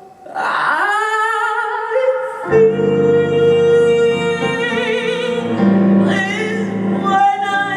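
A singer in operatic style sliding up onto a note and then holding long notes with wide vibrato, over a low sustained instrumental accompaniment that comes in about two and a half seconds in.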